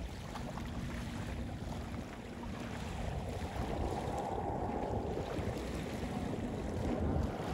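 Shoreline ambience of wind rumbling on the microphone over open water, with a faint steady hum in the first few seconds; the wind noise grows louder about halfway through.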